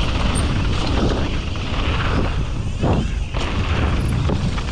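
Mountain bike descending a dirt trail, heard from a helmet-mounted camera: wind buffeting the microphone over the rumble of tyres on dirt, with knocks and rattles from the bike and a louder thump about three seconds in.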